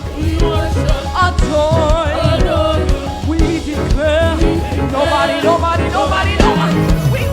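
Live gospel praise music: a band with drums and bass playing an up-tempo groove while voices sing a melody without clear words.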